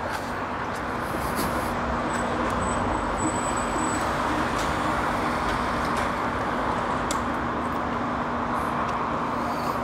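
Steady vehicle engine and traffic noise, with a low even hum setting in about a second in.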